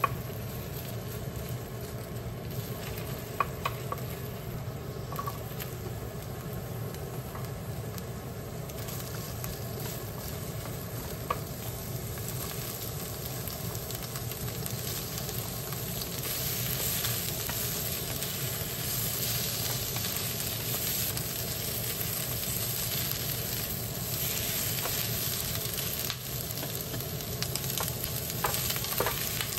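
Food sizzling in an iron frying pan, stirred with a wooden spatula, with a few light taps. The sizzle grows louder about halfway through as the garlic scapes and onion fry. Near the end there is a short clatter as fried tofu slides in off a metal tray.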